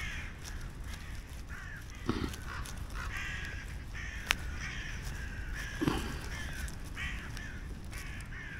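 Harsh, crow-like bird calls repeating every second or so. Two dull knocks and one sharp click come from a knife working through a hard stick of fatwood.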